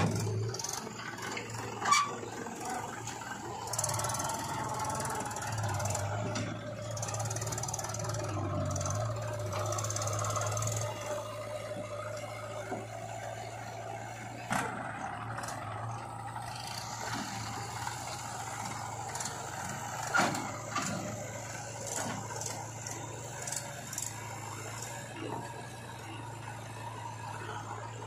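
Diesel engines of a JCB 3DX backhoe loader and a Mahindra tractor running at a steady hum, with a higher whine from about four to twelve seconds in. Scattered knocks and clanks, the sharpest near the start and again about two seconds in.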